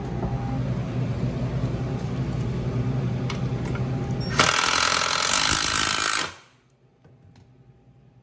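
Milwaukee cordless impact driver sinking a screw into a pine 2x2: a loud hammering rattle starts about four and a half seconds in, runs for about two seconds and stops suddenly. Before it there is a steady low hum.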